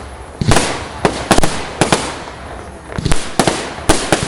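Fireworks shells bursting in quick succession, a string of sharp bangs each trailing off in a short crackling echo, in two clusters about two seconds apart.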